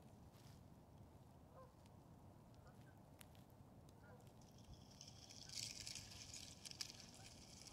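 Near silence at the river's edge: a few faint, distant honk-like calls, then from about five seconds in a soft hiss with light crackling from the floating slush ice.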